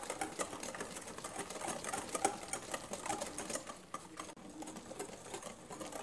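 Wire whisk beating liquid egg-and-sugar batter in a glass bowl: a rapid, steady run of clicking strokes against the glass, with a brief break about four seconds in.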